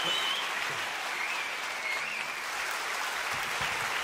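Theatre audience applauding steadily after a song.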